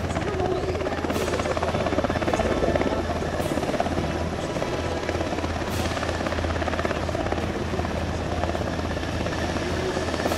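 NH90 medium utility helicopter hovering, a loud, steady rotor and turbine noise with a rapid, even beating of the blades.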